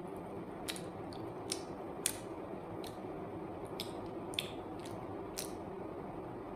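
Mouth sounds of someone eating a soft peeled banana: wet smacks and clicks of lips and tongue as she bites and chews, about seven short sharp clicks over a steady background hiss.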